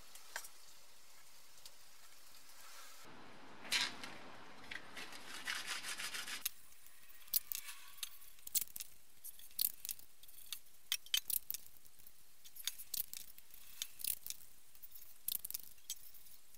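Masking tape being pulled off the roll with a tearing rasp, then a run of short sharp crackles and ticks as strips are torn and smoothed down by hand onto a painted metal fuel tank.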